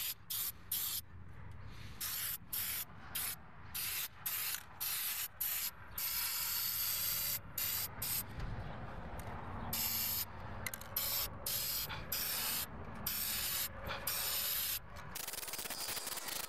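Aerosol spray paint can hissing as paint is sprayed onto a steel wheel: many short bursts at first, then longer, steadier passes from about six seconds in.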